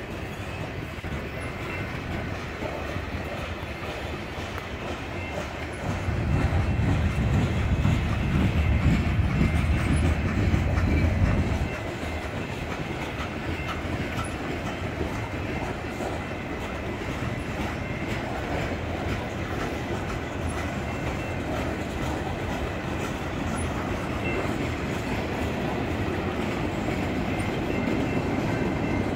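Freight cars of a manifest train rolling past: a steady rumble and clatter of steel wheels on rail joints. A louder low rumble swells for several seconds about a quarter of the way in, then drops back.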